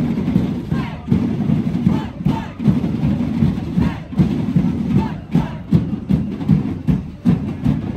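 A group of voices chanting and shouting together in a steady rhythm, over music with a beat and the noise of a crowd around.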